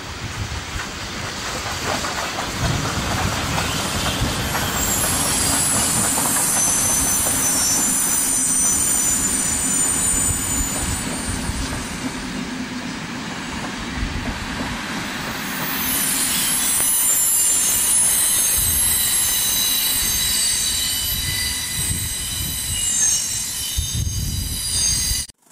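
Steam-hauled passenger train rolling out, its coaches' wheels running over the track with a high-pitched squeal from the wheels. The squeal eases briefly midway, then returns louder.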